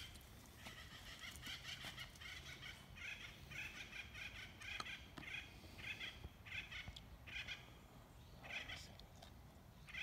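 A flock of birds calling overhead, taken for parrots: many short calls overlap for the first few seconds, then single calls come a little under a second apart.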